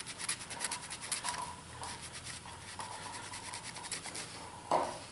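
Quick scrubbing strokes, as of a rag rubbing over a Glock 30 pistol to wipe off missed dirt: a run of short, scratchy rubs, with one brief louder sound near the end.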